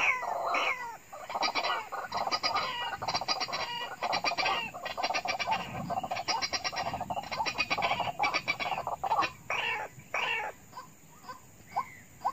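White-breasted waterhen calling: a fast, unbroken run of harsh repeated notes that thins out about ten seconds in into short single notes, roughly two a second.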